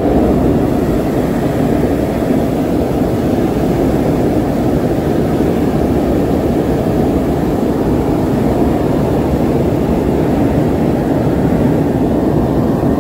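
Hot-air balloon's propane burner firing in one long, steady burn that starts abruptly.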